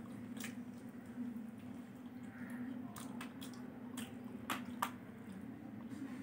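Wet chewing and lip-smacking of someone eating fried chicken 65 with his fingers. Short sharp smacks and clicks come scattered through, the loudest a little after four and a half seconds in.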